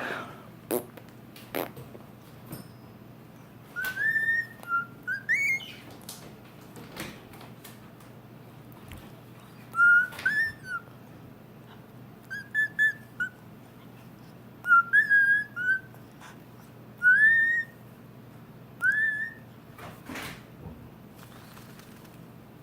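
Pet parrot whistling: a run of short, bright notes that swoop up and down, in little groups of two or three, with a few sharp clicks in between.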